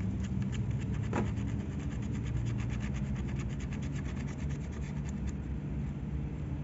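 Fast, even scrubbing strokes against hard carbon deposits on a Ford Escape's throttle body, stopping about five seconds in, with a brief whoosh about a second in. A steady low hum runs underneath.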